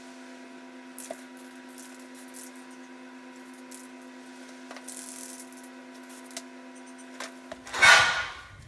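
A steady electrical-sounding hum with a few small clicks and taps. The hum cuts off near the end and is followed by a short, loud clatter.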